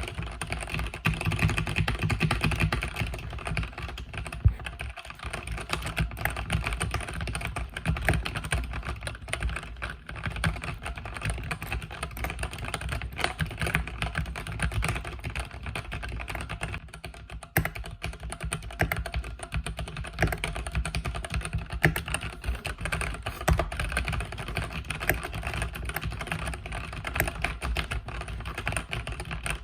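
Mechanical keyboard with red linear switches being typed on steadily, a fast, dense patter of keystrokes with short lulls about five seconds in and again around seventeen seconds in.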